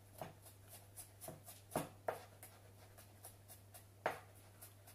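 Knife cutting garlic cloves on a plastic cutting board: irregular light taps and scrapes of the blade on the board, over a low steady hum.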